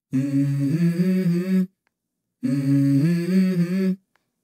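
A voice humming a short melody in two phrases of about a second and a half each, with a brief silence between; the notes are held and step upward within each phrase.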